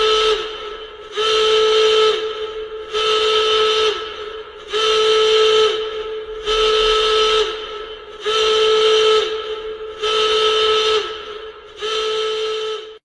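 An emergency alarm horn sounding in eight evenly spaced blasts, each about a second long on one steady whistle-like pitch that dips slightly as each blast ends.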